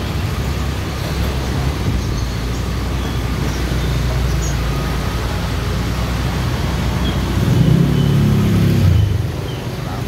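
Low-speed motorbike and scooter engines running in a narrow street, a steady low rumble of traffic. A nearby engine grows louder about seven and a half seconds in, then drops away shortly before the end.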